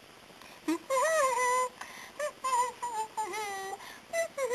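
A high-pitched, sped-up cartoon voice singing a wordless little tune in short, sliding notes, starting just under a second in.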